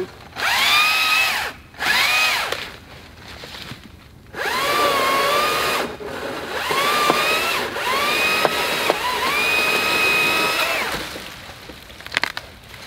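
Stihl MSA 161T battery-powered top-handle chainsaw triggered in about five bursts, each a whine that rises quickly to a steady pitch, dipping briefly as the chain bites into grapevine and brush. It stops about two seconds before the end.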